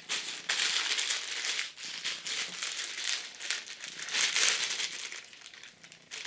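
Irregular rustling and crinkling of a mask hood and balaclava being pulled on and adjusted, in uneven surges with a quieter spell near the end.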